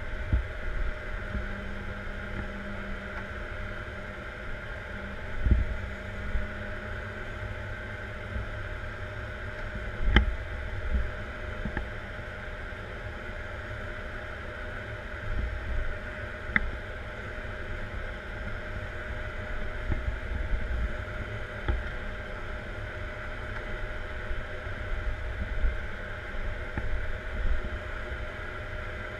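Caterpillar 140M Series 2 motor grader heard from inside the cab: the diesel engine runs with a steady drone and whine while the machine works, with low rumbling swells and a few sharp knocks and clanks from the frame and blade.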